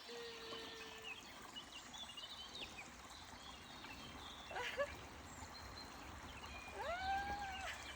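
Faint running water of a stream with small birds chirping now and then, and a short held vocal call near the end.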